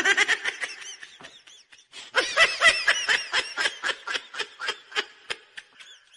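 Laughter in quick rhythmic bursts: a short run at the start, then a longer run from about two seconds in that fades toward the end.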